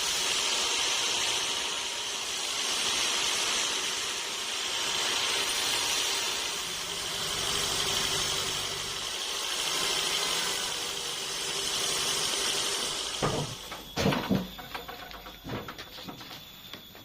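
Sawmill band saw cutting through a teak log: a steady hiss of the blade in the wood, swelling and easing slowly. It stops about 13 s in, followed by a few sharp knocks and clatters.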